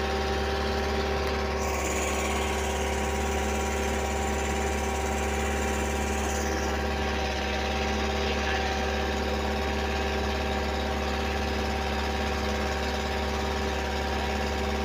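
Boat engine running steadily while the boat is under way, an even hum that holds one pitch throughout.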